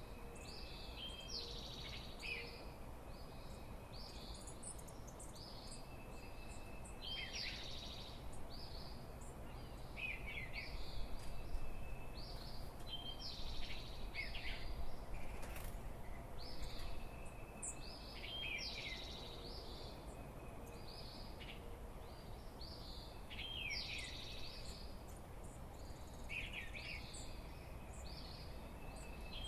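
Dawn chorus of songbirds: several birds repeating short high chirps and quick down-slurred notes, over a steady low background rumble.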